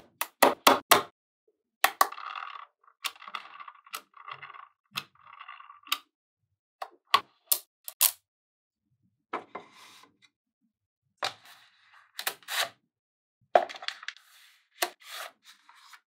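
Small magnetic balls clicking and snapping together as strips of them are set onto a magnetic-ball wall, with sharp clicks in quick runs and short stretches of rattling as the balls shift against each other.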